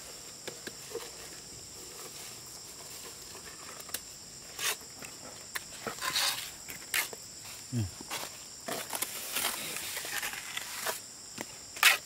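Steady high chirring of insects, crickets or cicadas, with scattered clicks and scraping knocks, the loudest near the end.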